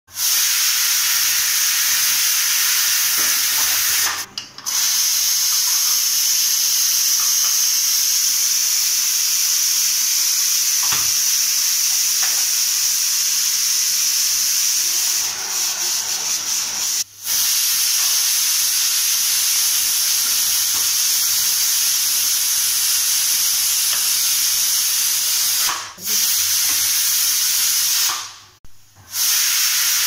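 Pressure cooker venting steam in a loud, steady hiss, with a few brief breaks.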